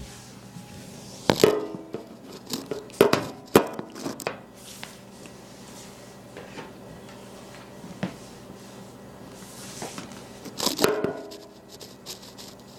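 Sharp plastic clicks and clatter from a Nerf dart pistol being primed, fired and handled. There is a burst about a second in, several more around three to four seconds, a lone click at eight seconds and another cluster near the end.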